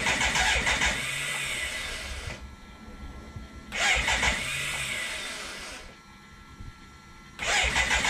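BMW K100's electric starter cranking its inline four-cylinder engine in three bursts of about two seconds each, the last starting near the end, without the engine catching and running. The owners think not enough fuel is reaching the engine.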